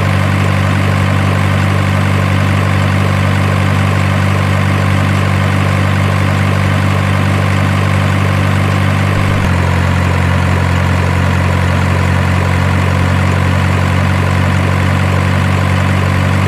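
Simulated heavy diesel engine idling steadily, the looped engine sound of an RC truck or excavator sound unit; its tone changes abruptly about nine and a half seconds in.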